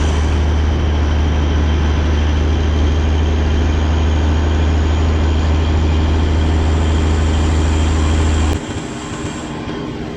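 Semi truck running down the road: a loud, steady low engine drone with road noise. About eight and a half seconds in the drone drops away suddenly, leaving a quieter steady rumble.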